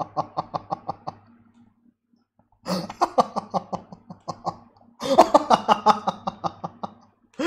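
A man laughing hard in rapid repeated bursts, partly behind his hand. A first bout dies away about a second in, then after a short gap come two more bouts.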